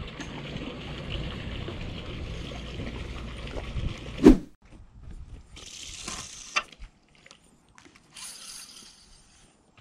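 Steady wash of water and wind noise, broken by a single sharp click about four seconds in. After that it is quieter, with two short hissing swishes.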